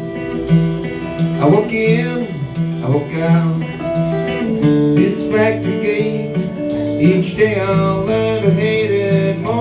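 Live band playing the instrumental intro of a blues song: guitar to the fore with notes bent up and down over a steady repeating bass line.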